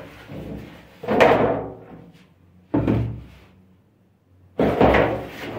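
A few hard knocks and thuds, like things being put down or shut: one about a second in, one near three seconds, then several close together near the end.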